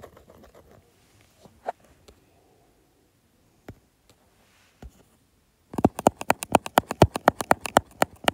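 A few single taps on a tablet touchscreen, then from about six seconds in a fast run of ticks, roughly ten a second, as the screen is scribbled on rapidly.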